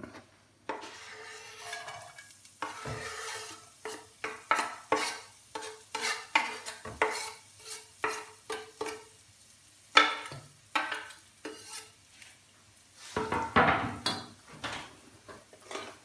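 Chopped shallots and spring onions sizzling lightly in olive oil in a frying pan, with a run of sharp taps and scrapes of a knife and utensil against the pan as they are pushed in and stirred. They are being sweated, softened without browning.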